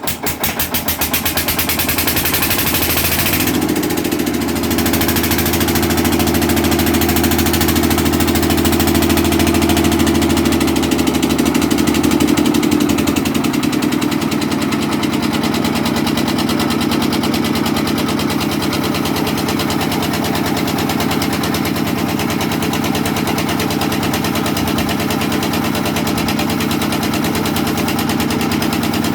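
Engine catching and running steadily, at a raised speed for roughly the first twelve seconds and then settling to a slightly lower, even idle.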